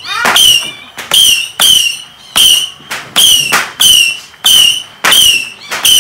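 A firework going off at ground level, firing a steady rapid series of loud cracks, about two a second, each with a short high whistle that dips slightly in pitch.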